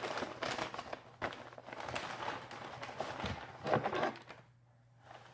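Wrapping paper crinkling and rustling as it is folded and pressed around a present, with the loudest crinkle about four seconds in before the rustling dies down.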